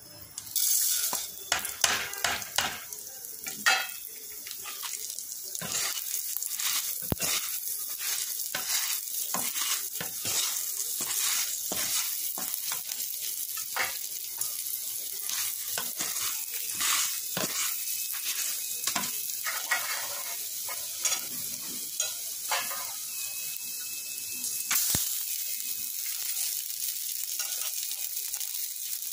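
Hot oil sizzling steadily as split urad dal and dried red chillies fry in a nonstick kadai, with frequent short knocks and scrapes of a wooden spatula stirring them. The sizzle starts just after the lentils go in and grows brighter near the end.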